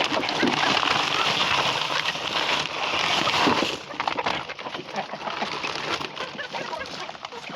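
Poultry feeding on wet soaked bread: a dense wet sloshing and pecking of many bills in the mash, loud for the first four seconds or so, then quieter with scattered single pecks.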